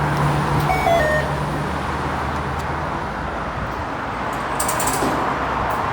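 Road traffic noise: a steady rush of passing vehicles, with a low engine hum in the first second or two.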